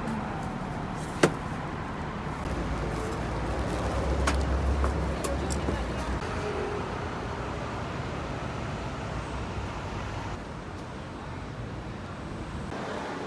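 Road traffic noise, with a low rumble of a passing vehicle swelling and fading in the middle, then dropping to a quieter background near the end. A sharp knock about a second in comes from a large knife cutting through a block onto a wooden board.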